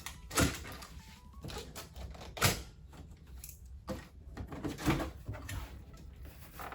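Cardboard packaging of a hoverboard being unpacked by hand: scraping and rustling with a series of knocks, the three loudest about half a second, two and a half and five seconds in.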